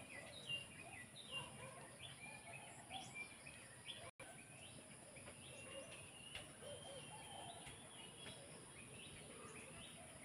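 Small birds chirping faintly, many short high falling notes repeated throughout, over a steady high hiss. The sound drops out for an instant about four seconds in.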